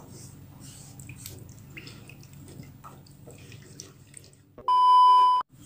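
Silicone spatula stirring a thin milk-and-flour sauce in a non-stick pan: faint soft scraping and liquid swishing. About four and a half seconds in, a loud steady electronic beep lasts under a second and cuts off suddenly.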